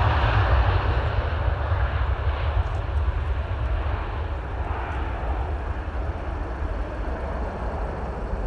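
Saudia Boeing 787-10 jet airliner's engines, loudest at the start and steadily fading as the aircraft moves away, over a steady low rumble.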